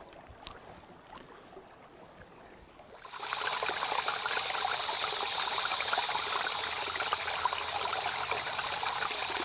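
A few faint clicks, then about three seconds in a loud, steady rush of flowing water sets in and runs on evenly.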